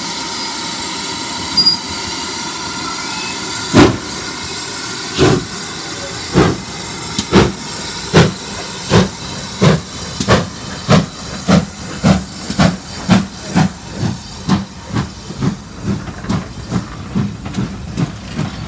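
GWR 2-6-2 Prairie tank steam locomotive 5526 moving off: a steady steam hiss, then slow exhaust chuffs about four seconds in that quicken to around two a second as it gets under way.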